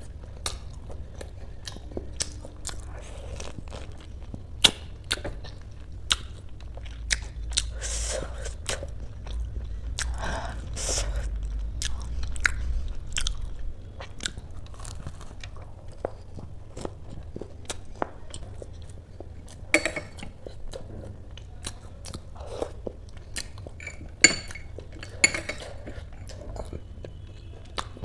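Close-miked chewing and biting of a crisp, deep-fried kachori, with many sharp crunches scattered throughout.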